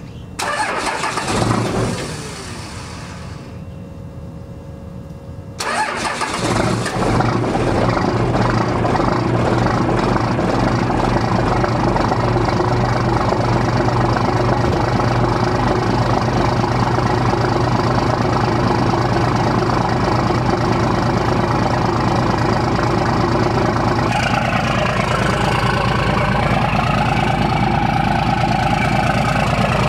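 Straight-piped 1997 12-valve Cummins 5.9 L inline-six diesel cold-starting after three days sitting in freezing weather: it cranks and catches about five or six seconds in, then runs at a steady, loud idle.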